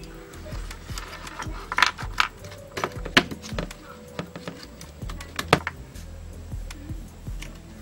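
Background music under irregular sharp clicks and taps as hands press a small loudspeaker into a plastic radio case and handle its wires, with the loudest clicks around two, three and five and a half seconds in.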